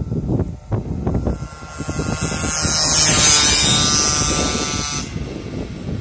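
Wangye CBC 50 two-stroke engine revving as the bike rides past, with a high buzzing note that swells to its loudest about three seconds in and falls away after about five.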